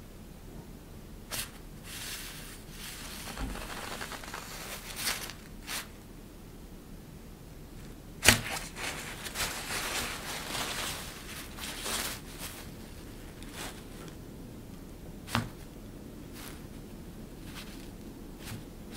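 Rustling of a thin, crinkly plaid fabric sheet as cat-teaser toys are pushed around beneath it and poked through holes. It comes in two spells of rustling, with short sharp snaps of the fabric, the loudest about eight seconds in and another near the end.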